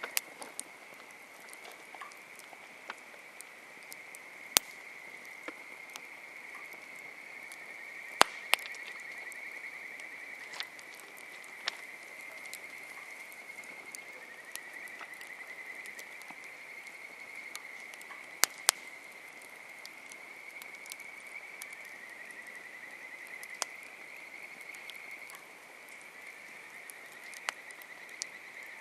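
Wood campfire crackling, with scattered sharp pops, the loudest about 4, 8 and 18 seconds in. Behind it, a steady high-pitched chorus of small animals runs continuously.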